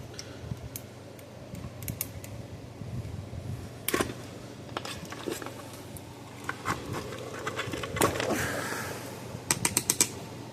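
Small parts and tools being handled on a workbench: scattered clicks and light knocks, a rustle a little past the middle, and a quick run of about six clicks near the end, over a low steady hum.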